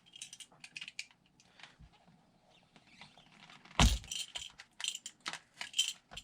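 Razor blade cutting around a rubber RC car tire, a run of small scratchy clicks as the blade works through the rubber, with one sharper knock a little under four seconds in.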